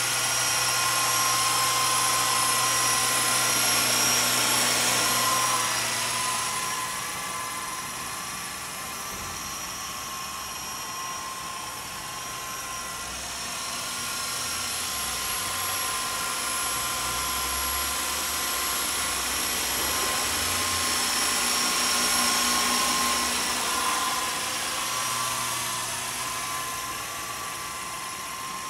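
Walkera Lama 400 coaxial electric RC helicopter in flight: a steady high whine from its electric motors over the whir of its two stacked rotors. It is louder for the first few seconds and again about two-thirds of the way through, fading in between as it moves farther off.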